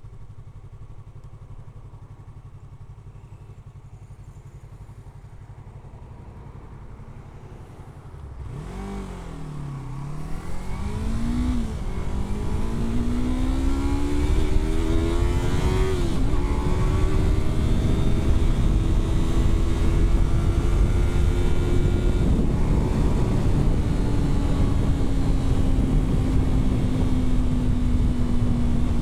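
Yamaha R3's parallel-twin engine running low and steady. About eight seconds in it accelerates, revving up and dropping back at about three gear changes, then holds a steady cruise. A rush of wind grows with the speed.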